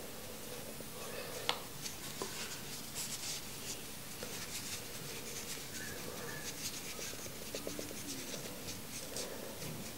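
Cotton vape wick being rolled and twisted between fingertips: soft, irregular rubbing and scratching, with one sharper tick about a second and a half in.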